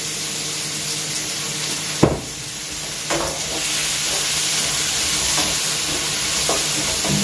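Vegetables stir-frying in a pan over a gas flame, sizzling steadily while a wooden spatula stirs them, with a few light knocks. One sharp knock about two seconds in.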